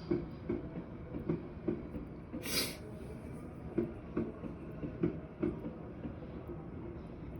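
A train passing, its wheels knocking over rail joints in a steady run of clicks, often in pairs, over a low rumble. A short hiss comes about two and a half seconds in.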